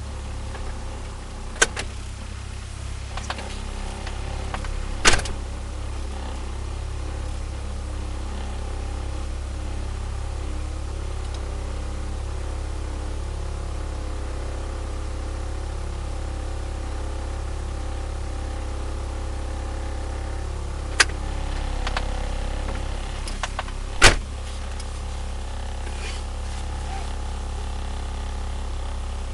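Turbocharged Nissan Micra engine idling steadily at about 1000 rpm while still warming up after a cold start, heard from inside the cabin as a low, even hum. A few sharp clicks or knocks stand out over it.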